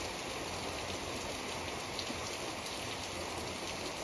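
Steady rain falling: an even hiss with a few faint ticks of single drops.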